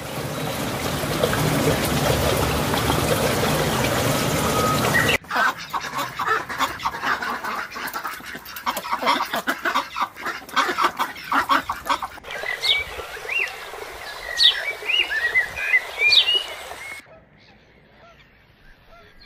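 Ducks calling in rapid runs of quacks, after a dense rush of noise in the first few seconds. Later come short rising bird chirps and whistles, then the sound drops to quiet near the end.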